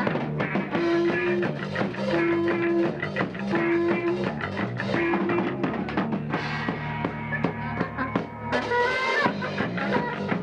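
Rock band playing: drum kit with bass drum keeping a steady beat under electric guitar and bass, with a short held note repeating in the first half and a bright crash about two-thirds of the way through.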